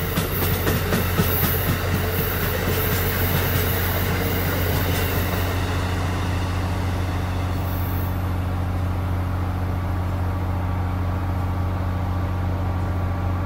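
Amtrak train's Amfleet passenger cars passing at speed, wheels clicking rapidly over the rail joints with a hiss. The clicking stops about six seconds in as the last car goes by, leaving a steady low rumble as the train moves away.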